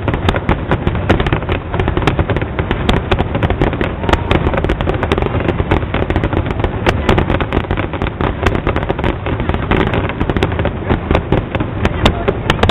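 Fireworks display going off without pause: a dense, rapid run of bangs and crackles over a steady rumble.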